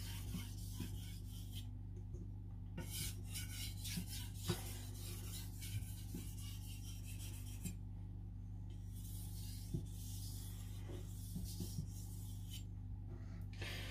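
Knife edge stroked back and forth on a natural whetstone in a rapid run of short scraping strokes, with brief pauses about two, eight and thirteen seconds in. A steady low hum runs underneath.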